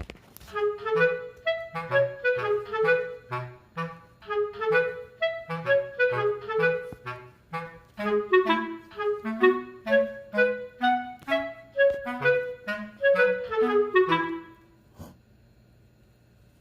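Background music: a quick melody of short, separate notes that stops about fifteen seconds in.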